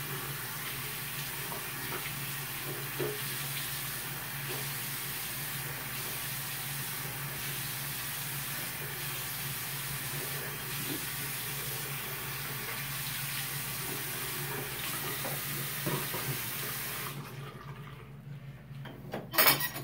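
Bathroom sink faucet running steadily into the basin while a child rinses his face; the water is shut off abruptly about three seconds before the end. A couple of sharp knocks follow near the end.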